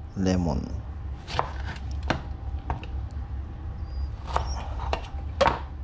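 Kitchen knife chopping on a cutting board: about six sharp, irregularly spaced knocks, over a steady low hum.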